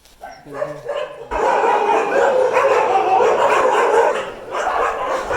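Dogs barking and yipping over one another in a dense, loud din that starts suddenly about a second in, with a brief lull near the end.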